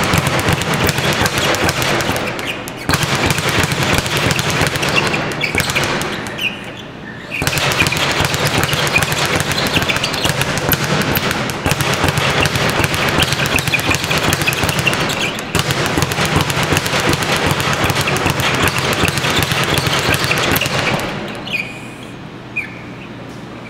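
Speed bag being punched in a fast, continuous rattle against its overhead rebound platform. There is a short break about six seconds in, and the punching stops about 21 seconds in.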